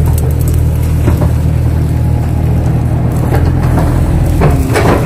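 Kato HD 512E excavator's diesel engine running steadily under load, heard from inside the cab. From about three seconds in come several sharp knocks as the bucket works the wet mud.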